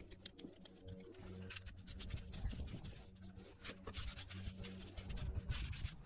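Scissors snipping weed, then hands scraping and mixing damp sand with the chopped weed: irregular gritty scratching and rustling.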